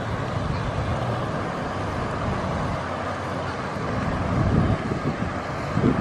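Steady rushing of a small waterfall spilling over a stone ledge into a pool. Wind buffets the microphone with low rumbles from about four seconds in.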